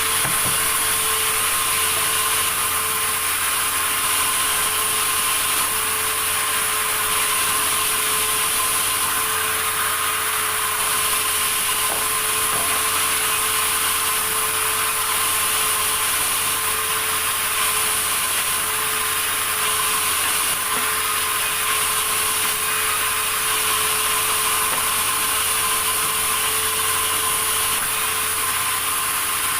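Sawmill saw running steadily: a constant whine over a high hiss that does not change.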